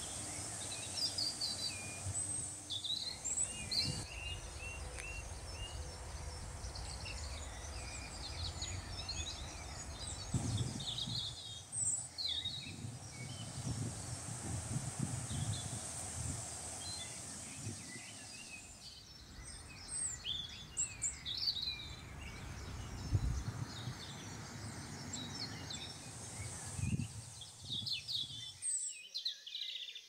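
Outdoor birdsong: several small birds chirping and trilling in short, scattered phrases over a low, steady rumbling background noise. The rumble drops away near the end.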